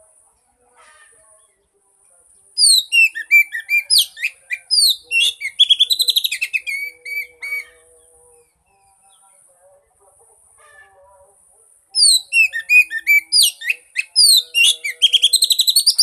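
Oriental magpie-robin song in two loud bouts of varied sweeping whistles and rapid trills, the first starting about two and a half seconds in and the second about twelve seconds in, with a quiet gap between. It is a lure recording of the kind played to coax a silent magpie-robin into singing. A faint steady high-pitched buzz runs underneath.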